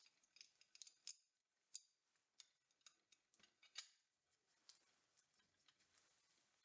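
Faint, irregular clicks and light taps from a black mounting plate being handled and pressed against the front of a peristaltic pump drive, a few of them sharper than the rest.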